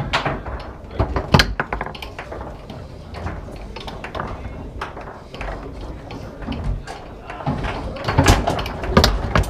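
Foosball play: the hard ball clacking off the plastic men and the table walls, with rods knocking against their bumpers. There are bursts of rapid knocks about a second in and again near the end.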